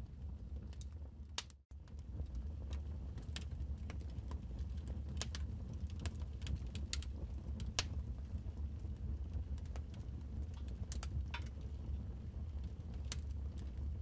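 Wood fire crackling in a fireplace: irregular sharp pops and snaps over a steady low rumble, cutting out for a split second about a second and a half in.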